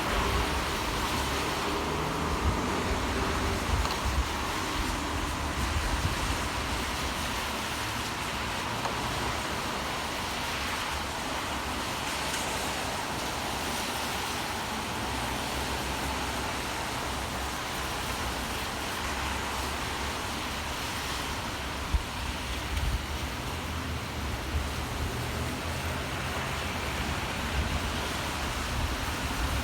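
Steady city ambience of rain and road traffic: a low rumble under an even hiss, with one sharp tap about twenty-two seconds in.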